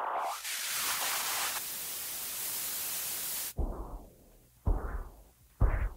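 A steady static-like hiss that cuts off suddenly about three and a half seconds in. It is followed by three heavy thuds about a second apart, each dying away quickly and louder than the hiss.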